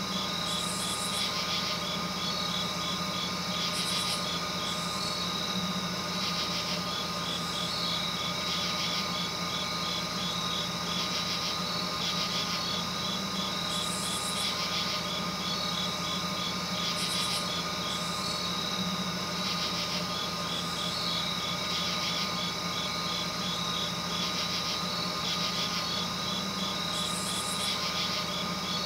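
Steady hum with trains of rapid high chirps a few seconds long and short, very high buzzes every few seconds, typical of night insects calling.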